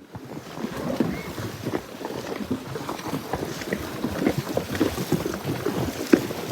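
Wind buffeting the microphone, with many irregular small thumps and knocks through it; it starts abruptly out of silence.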